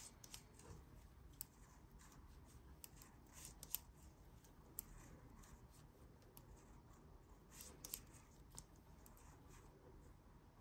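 Near silence with faint, scattered clicks and light rubbing of knitting needles and yarn as stitches are purled and slipped; a couple of small clusters of sharper ticks about a third of the way in and again near three quarters.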